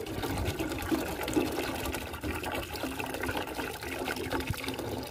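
Soft drinks trickling and gurgling in a large glass jar as they are mixed together.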